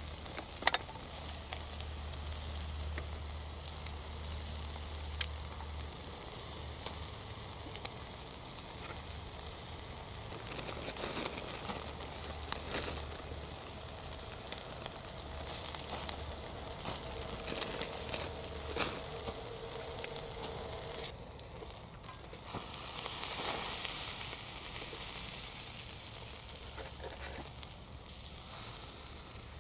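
Small wood fire burning in a compact folding camp stove, crackling and sizzling with scattered sharp pops. A louder hiss rises for a couple of seconds about three quarters of the way through.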